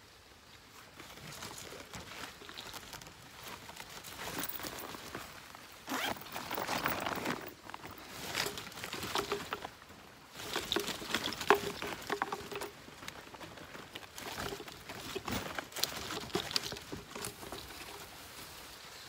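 Irregular rustling, crinkling and scratching in uneven bursts as the mesh of a fish trap is handled and torn open, loudest in the middle.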